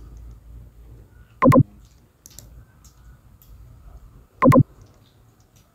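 Computer mouse clicks: two louder short clicks about three seconds apart, with a few faint lighter clicks between them.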